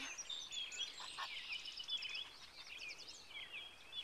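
Several songbirds singing at once: many short, overlapping chirps and whistles.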